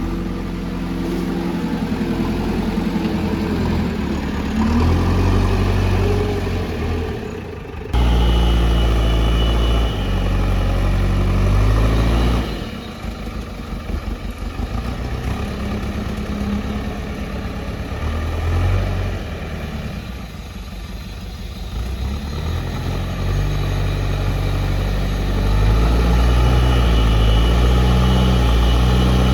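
JCB loader's diesel engine working under load, its note rising and falling as it revs up and eases back. The sound jumps abruptly louder about eight seconds in.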